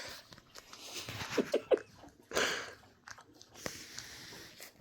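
Tibetan Mastiff puppies mouthing and chewing in play, with a few short squeaks about a second and a half in and snuffling sounds.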